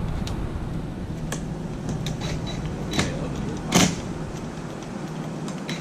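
Small clicks and knocks of parts and hand tools being handled, with a louder clatter about four seconds in, over a steady low hum.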